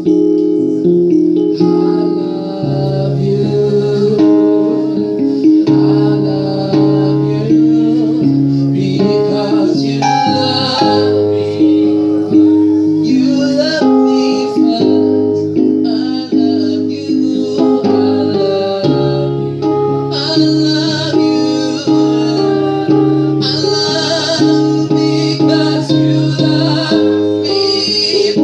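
Worship music: a band plays sustained chords with regularly plucked or struck notes, with some singing over it.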